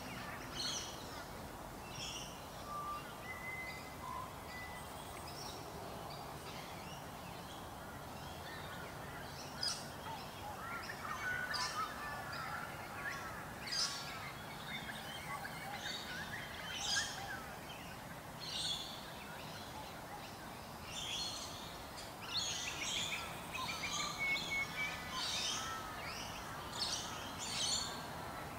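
Small birds chirping in the background: short high calls scattered throughout, with spells of faster chattering about eleven seconds in and again from about twenty-two to twenty-five seconds, over steady outdoor background noise.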